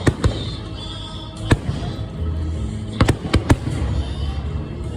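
Fireworks going off: a series of sharp bangs, two right at the start, one about a second and a half in, and a quick cluster of three around three seconds in.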